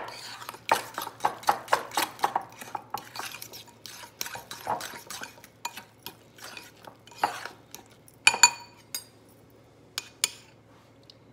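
A fork stirring and mashing deviled-egg filling of egg yolks and mayonnaise in a ceramic bowl, the tines scraping and tapping against the bowl in quick strokes. Near the end come a few sharper, ringing clinks of metal on the bowl.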